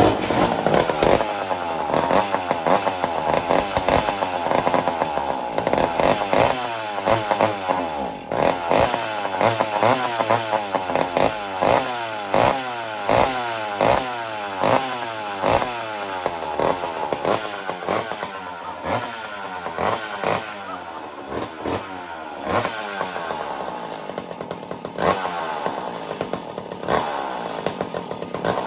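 Old McCulloch chainsaw's two-stroke engine running unevenly, its pitch rising and falling over and over about twice a second.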